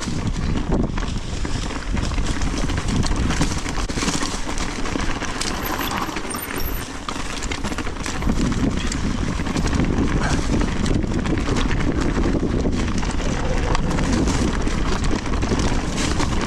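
Mountain bike ridden along a dirt trail: a steady rumble of tyres over the ground, with frequent knocks and rattles from the bike.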